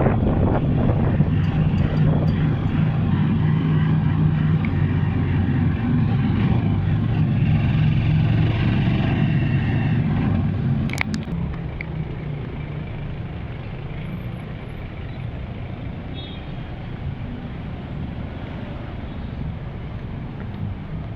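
Steady vehicle rumble with a low engine hum, loud for about the first half and then dropping to a quieter level, with one sharp click about halfway through.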